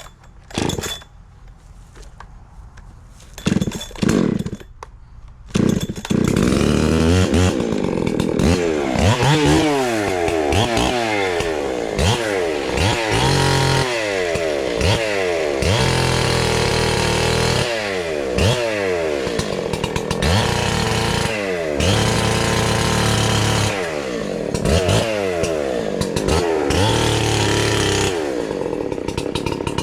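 NEO-TEC NH872 71cc two-stroke chainsaw: a few short bursts of engine sound, then from about six seconds in it runs continuously at high revs, its pitch repeatedly sagging and recovering as it is worked through a large log.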